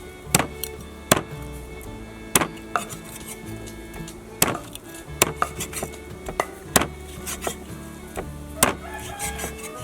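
About a dozen sharp, irregularly spaced knocks of food being cut or struck by hand against a wooden surface, over steady background music.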